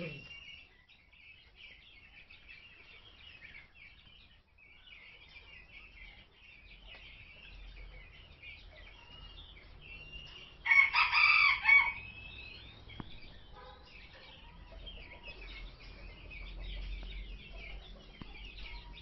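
Many small birds twittering and chirping without a break, with one much louder call lasting about a second, about eleven seconds in, that sounds like a rooster or other fowl crowing.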